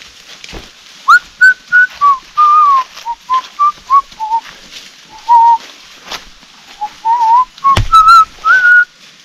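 A person whistling a long string of short notes that rise and fall in pitch, close and loud. A sharp knock cuts in shortly before the end.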